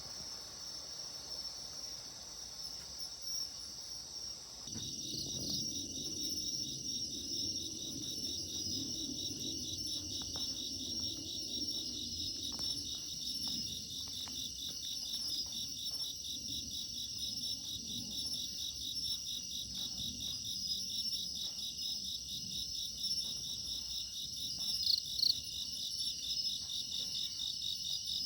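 Insects chirring steadily in high, shrill trills; about five seconds in a second, fast evenly pulsed trill starts up along with a low steady rumble.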